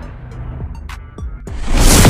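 Intro music with a heavy bass beat and a few short sound-effect hits, swelling into a loud rush near the end.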